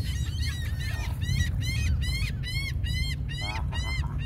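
A bird calling over and over, a rapid series of short arched notes about three a second, louder from about a second in, over a steady low rumble.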